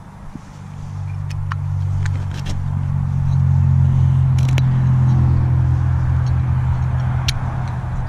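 A motor vehicle's engine drones steadily, building up about a second in and loudest through the middle before easing slightly. A few light, sharp clicks from handling a dug-up Zippo lighter sit on top.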